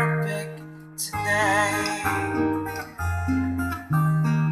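Karaoke backing track of a slow ballad: acoustic guitar and sustained notes playing the song's closing instrumental bars, with no singing.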